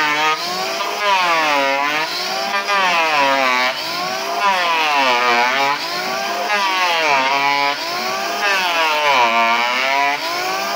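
Electric hand planer shaving the face of a wooden door, its motor whine sagging in pitch and rising again over and over, about once a second, as it is pushed back and forth through the wood.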